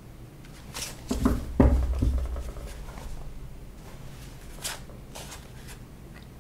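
Tarot cards being handled on a cloth-covered table: a cluster of taps and low thumps between one and two seconds in, the loudest about halfway through that cluster, then a few lighter card rustles and clicks as the deck is fanned out in the hands.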